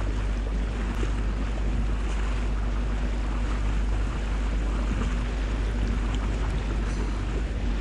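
Boat under way: a steady engine hum with water rushing along the hull and wind buffeting the microphone.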